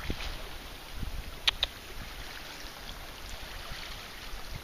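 Small water sounds around a kayak on calm sea: gentle lapping and dripping, with a low wind rumble on the microphone. A couple of small sharp clicks come about a second and a half in.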